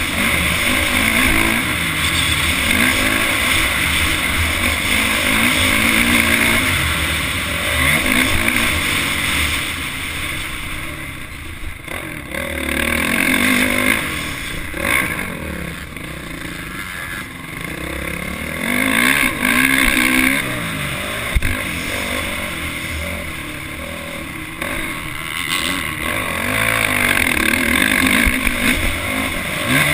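Motocross dirt bike engine heard from on board, revving up and down as the rider works the throttle and gears. It eases off in quieter spells through a turn around the middle and opens up loud again on the straights near the end.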